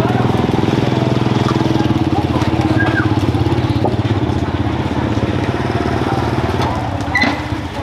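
Small motorcycle engine running steadily with an even, rapid pulse.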